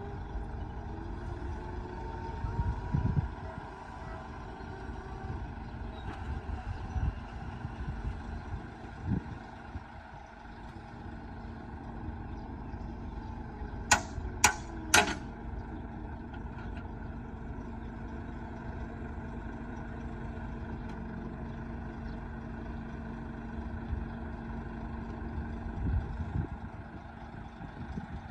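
Heavy diesel engines of earthmoving machinery (bulldozer and dump trucks) running steadily. Three sharp knocks come in quick succession about halfway through.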